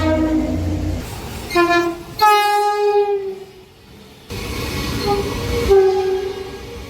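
Passing trains sounding their horns in a series of short clips: several blasts of a chord of steady tones, one dropping slightly in pitch as the train goes by (Doppler effect), with the low rumble of the train under them.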